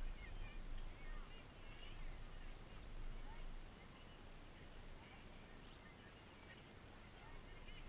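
Faint open-air ambience: a low wind rumble on the microphone, strongest in the first few seconds, with scattered short bird chirps and faint distant voices.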